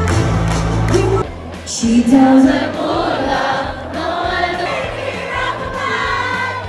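Music with singing voices; a heavy bass line drops out about a second in, leaving the sung lines over a lighter backing.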